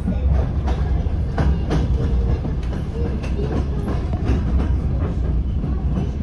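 Inside a DR1AM diesel multiple-unit train in motion: a steady low rumble, with the wheels clacking over rail joints at uneven intervals.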